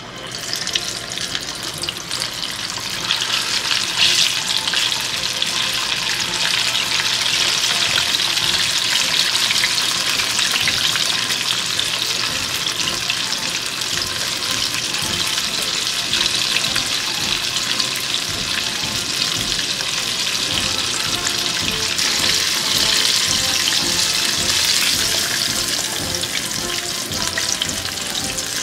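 Karaage chicken pieces deep-frying in hot oil in a pot: a dense, steady sizzle and crackle of bubbling oil that swells up sharply in the first second as the chicken goes in.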